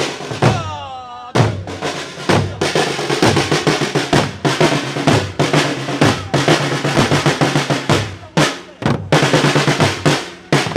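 A group of drummers beating drums together in a dense marching rhythm, with many strokes in quick succession.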